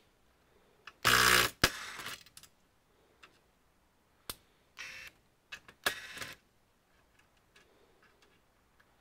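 Sharp plastic clicks and knocks with a few short scraping rasps as the back cover of an all-in-one PC is worked loose; the loudest rasp comes about a second in, another about six seconds in.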